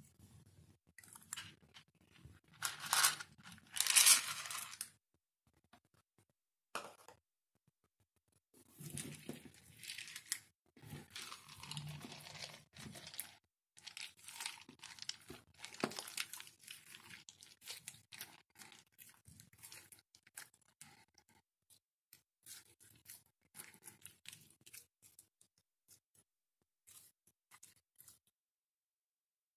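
Clear slime with lipstick worked into it being folded, stretched and kneaded by hand: sticky crackling and tearing sounds in irregular bursts, loudest about three to four seconds in, thinning to sparse clicks and pops toward the end.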